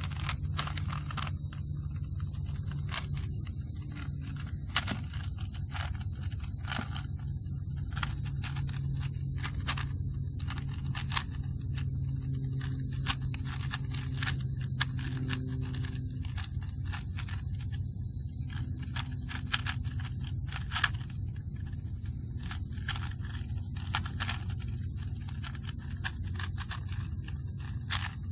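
A Rubik's cube being turned quickly by hand during a speed-solve: a rapid, irregular stream of small plastic clicks and scrapes.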